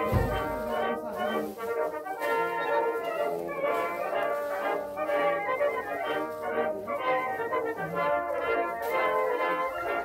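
Background music led by brass instruments in an orchestral style, with a brief low thump at the very start.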